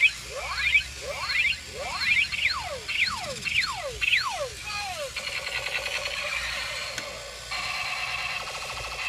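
Battery-operated toy robot's electronic laser sound effects: a string of quick pitch sweeps, mostly falling, about two a second, then from about five seconds in a fast, buzzing electronic warble.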